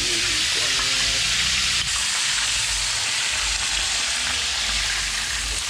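Pieces of marinated native chicken frying in hot cooking oil in a pan, a steady loud sizzle.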